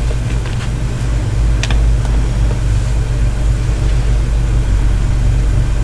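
Loud steady low hum with a faint hiss over it, a fault on the recording. A few faint clicks sound near the start and once more a little under two seconds in.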